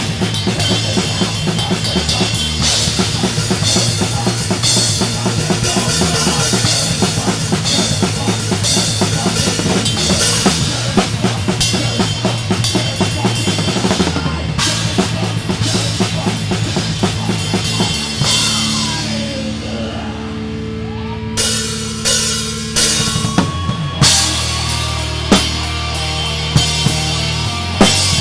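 A drum kit played with a full rock band, the kick drum and cymbals prominent in the dense playing. About 18 seconds in the band drops to long held, ringing notes, then punches a string of separate accented hits.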